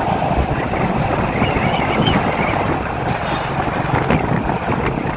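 Steady rushing wind buffeting the microphone.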